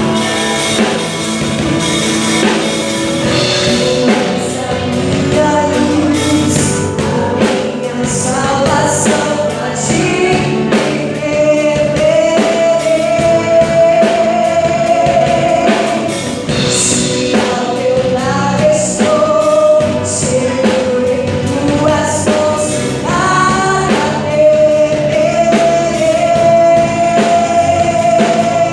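Live Portuguese gospel worship song, a female lead vocalist singing a melody with long held notes over a full band of drum kit, guitars, bass and keyboard.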